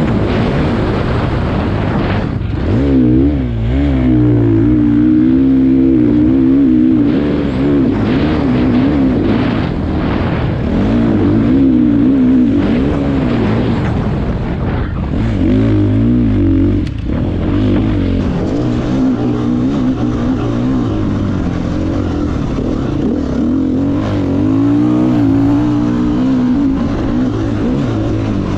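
Off-road motorcycle engine running hard while riding in sand, its revs rising and falling again and again as the throttle opens and closes, with a short drop in revs about two-thirds of the way through.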